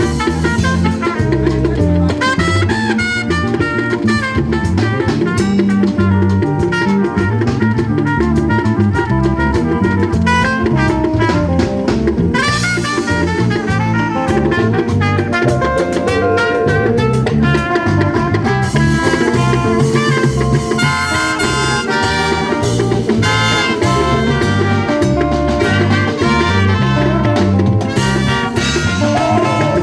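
Loud music with brass and a drum kit keeping a steady beat, in a jazz or Latin dance style.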